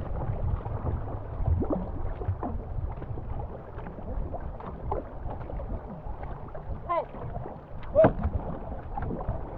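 Racing canoe under way: paddles dipping and pulling through the water, water washing along the hull, and wind buffeting the microphone in a steady low rumble. Two short shouted calls about seven and eight seconds in, the second the loudest.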